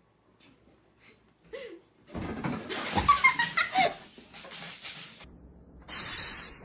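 Someone laughing, starting about two seconds in and fading after about two seconds; a loud hiss-like noise cuts in near the end.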